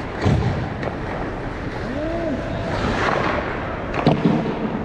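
Ice skates gliding and scraping over the rink, heard as a steady rush of noise on a skater-worn action camera. There is a low thump just after the start and a sharper knock about four seconds in.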